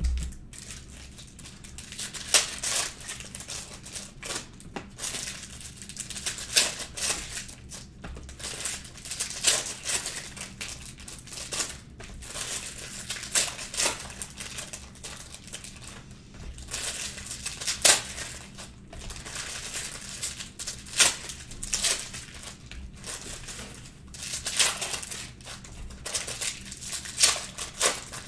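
Foil trading-card packs being torn open and their wrappers crumpled: a continuous run of irregular crinkling rips.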